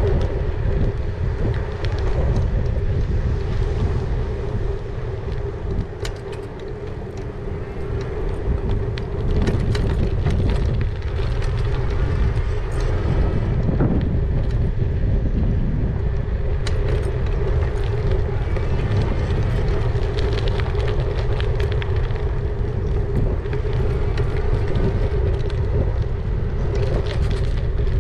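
E-bike riding over tarmac, heard from a camera on the bike: wind rumbling on the microphone, a steady whine from the electric motor, and scattered light rattles over the bumps. It goes quieter for a couple of seconds about six seconds in.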